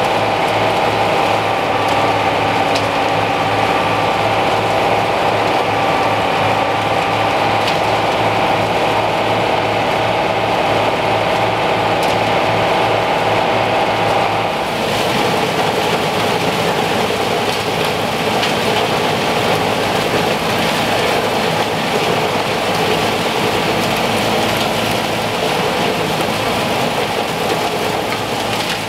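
Farmall M and International 826 tractors running steadily while the forage box unloads chopped soybean straw into an International 56 silo blower, with a steady pulsing engine note under the machinery. About halfway through the sound changes to a louder, steady rushing hiss close to the silo blower as the chopped straw is blown up the pipe.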